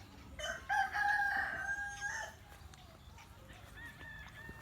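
A rooster crowing: one long call lasting about a second and a half, followed near the end by a fainter, higher-pitched call.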